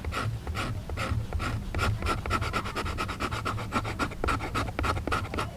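The 90-degree spine of a knife scraping quickly back and forth along a stick, raising fine fibres so the wood will take a spark. The strokes come evenly and speed up after about two seconds.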